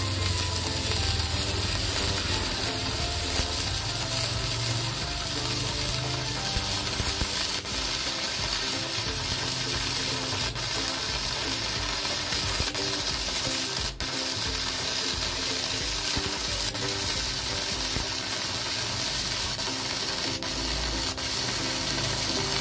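Steady crackle and hiss of a stick-welding arc burning a 2.6 mm electrode, powered by an XCORT MMA-200F IGBT inverter welder, running without a break; the arc runs smoothly.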